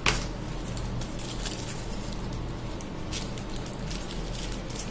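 Thin plastic wrapping rustling and crinkling in a few separate handlings as it is pulled off a clear phone back cover, with a sharp tap right at the start.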